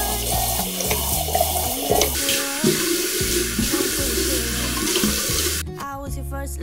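Tap water running into a sink and splashing as foam is rinsed off a face by hand. It cuts off suddenly near the end.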